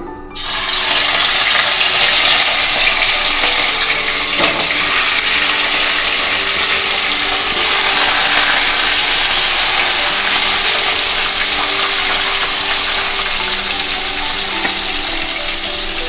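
Fish steaks rubbed with salt and turmeric sizzling in hot mustard oil in a kadai: a loud, steady sizzle that starts suddenly as the fish goes into the oil.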